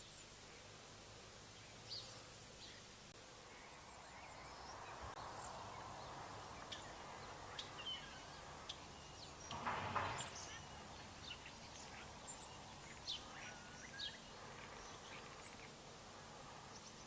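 Scattered short bird chirps and calls over faint outdoor background noise, with a brief louder rush of noise about ten seconds in.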